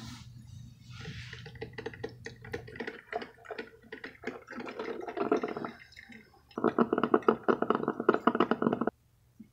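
Drip coffee maker brewing: hot water gurgling and sputtering through the machine and coffee dripping into the glass carafe. The irregular pops build near the end into a loud, rapid burble that cuts off suddenly.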